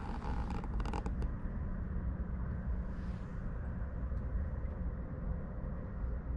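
Camera handling noise: a quick run of clicks and rustles in the first second or so as the camera is turned, over a steady low rumble.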